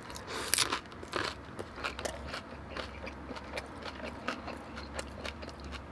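Close-mic chewing of a birria taco: a crunchy bite about half a second in, then steady chewing with irregular small wet clicks and crackles.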